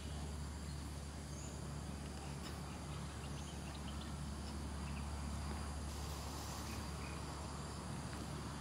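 Steady outdoor ambience: a constant high insect drone with a few faint short chirps, over a low steady rumble.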